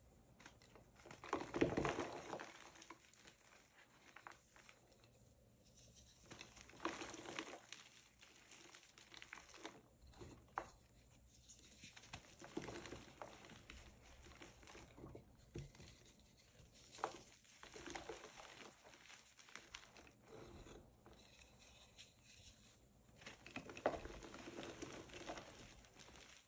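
Hands crushing and crumbling soft blocks of reformed gym chalk into powder: soft crunches and powdery crumbling that come in irregular bursts a few seconds apart, the loudest about two seconds in and near the end.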